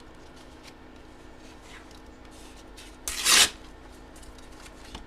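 Trading cards being handled, with a few faint ticks and one short, loud rustle about three seconds in.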